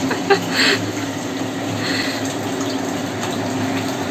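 Steady rushing noise of a gas burner under a pan of simmering mutton curry, with a low hum running under it. There are a few light knocks in the first second.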